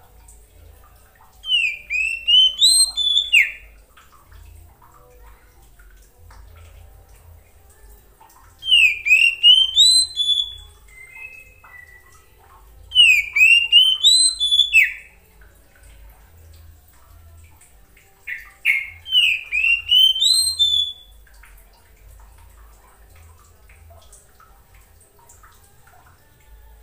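Oriental magpie-robin of the black-bellied form (kacer poci) singing four short phrases of sweeping whistled notes, each about two seconds long and a few seconds apart. It is the basic song by which a magpie-robin calls to other magpie-robins.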